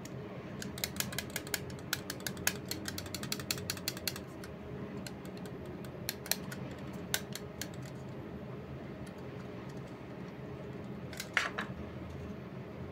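Small sharp plastic clicks from an Attack Shark X6 gaming mouse being handled, a quick dense run for the first few seconds, then scattered clicks. A short rasping sound comes near the end.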